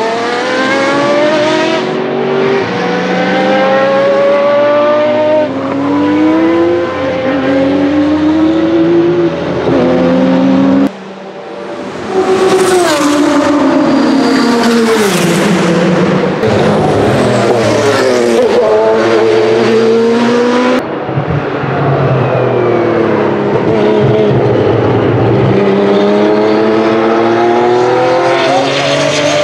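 March 85G's Porsche Type 962/70 turbocharged flat-six racing engine accelerating hard through the gears, in a series of rising notes each broken by an upshift. Some pass-bys fall away in pitch. The sound breaks off suddenly twice between shots.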